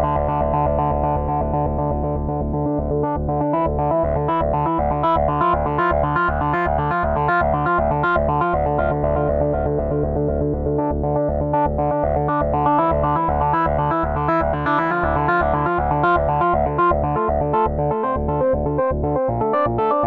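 Arturia SQ80 V software synthesizer, an emulation of the Ensoniq SQ-80, played from a keyboard: a held low chord with a fast, rhythmic run of repeated notes coming in about three seconds in.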